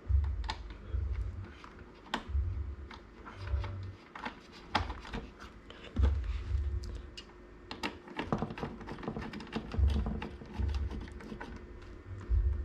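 Irregular clicks, taps and dull low thumps of hands handling computer hardware, several knocks a second in uneven bursts.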